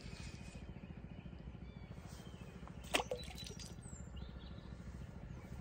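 Faint bird chirps over a steady low rumble, with one brief sharp sound about three seconds in.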